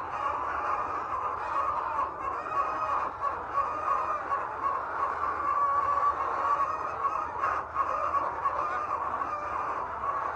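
A large flock of laying hens calling all at once: a steady, unbroken din of many overlapping clucks and squawks.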